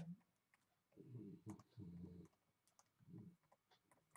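Near silence, with faint scattered clicks from a stylus tapping and writing on a tablet screen, and a few quiet low murmurs of voice in between.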